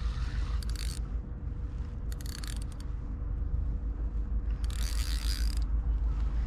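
Spinning reel being cranked to wind in a hooked mackerel, its gears ticking in a quick steady rhythm. Three brief bursts of hiss come through over it.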